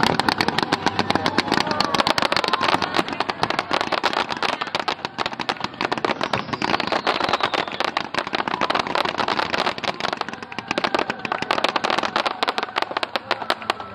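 Fireworks going off in a dense barrage: a rapid, unbroken string of bangs and crackles from many shells bursting at once, easing slightly a few times before picking up again.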